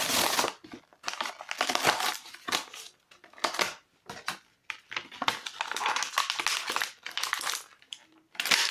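Plastic packaging of a wrestling action figure being handled and opened, crinkling and crackling in irregular bursts.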